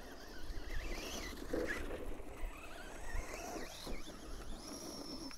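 Remo Hobby EVO-R 1/8 brushless truggy driving, its electric motor whine wavering up and down in pitch with the throttle, over a low rumble.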